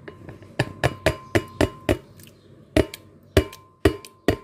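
A plastic bowl knocked repeatedly against the rim of a glass blender jar to shake thick yogurt out: sharp taps about four a second, a pause, then a few more, the glass jar ringing faintly after the knocks.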